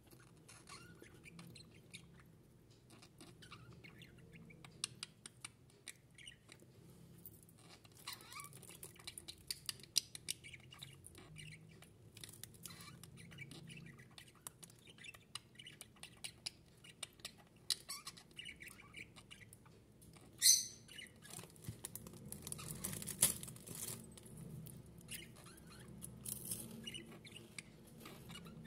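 Pair of budgerigars chattering quietly, a scatter of quick chirps, clicks and squeaks, with one loud sharp call about twenty seconds in.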